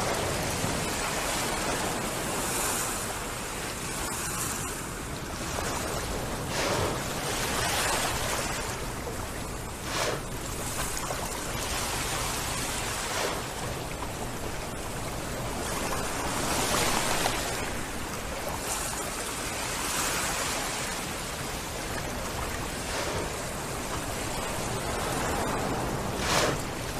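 Small waves washing on the shore, swelling and easing every few seconds, with a few brief louder splashes, the sharpest near the end.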